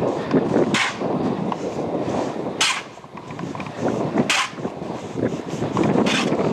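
Footsteps crunching in deep snow: four sharp, hissy crunches about every one and a half to two seconds, over rough wind noise on the microphone.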